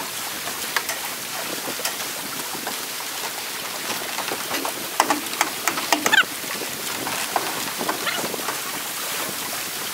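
A steady rush of wind and lake water around the dock, with a quick cluster of sharp knocks and clatters about five to six seconds in as the metal dock legs and frame are handled.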